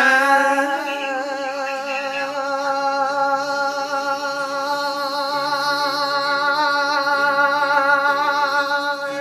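A long held final sung note with vibrato, unaccompanied, ending a Christmas song. A second, lower voice joins under it about halfway through.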